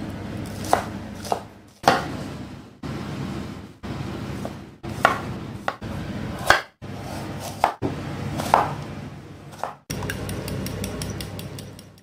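Kitchen knife chopping vegetables on a wooden cutting board, single sharp chops every half second or so. Near the end comes a fast, even whisking in a glass bowl, about seven strokes a second.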